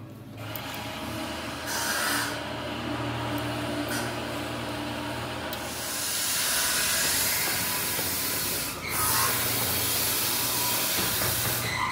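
Steady hiss over a low machine hum; the hiss grows louder about six seconds in and drops out briefly a little before nine seconds.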